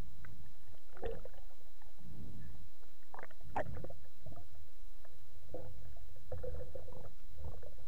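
Water sloshing and gurgling around a camera housing at the sea's surface as a spearfisher swims, heard as a muffled low rumble with scattered splashes.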